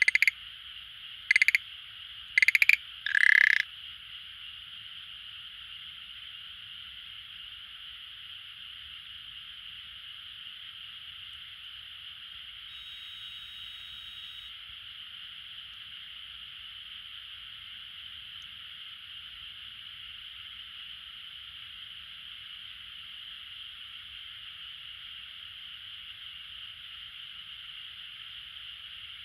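Schlegel's green tree frog giving four short rattling calls in the first few seconds, each a little longer than the one before, then falling silent. A steady high hiss continues underneath.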